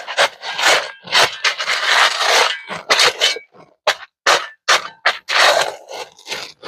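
Concrete mix being scraped and worked into a post hole: repeated gritty scraping strokes, roughly one or two a second, uneven in length.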